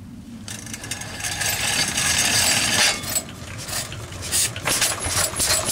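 Small petrol stationary engine catching after being wound round by hand, then running and driving a cast-iron paint mill through a flat belt. A busy mechanical clatter starts about half a second in. The belt won't stay on a pulley that is out of line and wobbling.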